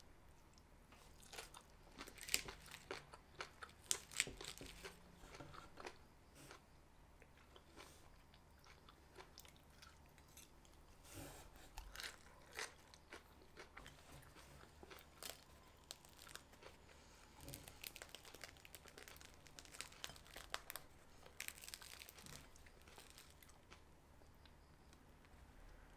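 Close-up eating sounds: fresh lettuce and carrot salad crunched and chewed, with sharp irregular clicks of a fork on a ceramic plate.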